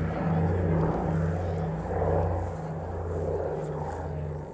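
Twin Pratt & Whitney R-1830 Twin Wasp radial engines of a PBY Catalina amphibian droning in flight, a deep steady hum that swells and fades in a slow throb as the two engines beat against each other.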